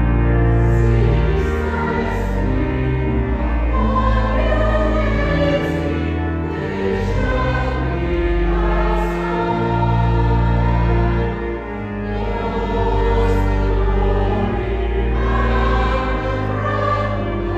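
Church choir singing a hymn over long held low accompanying notes.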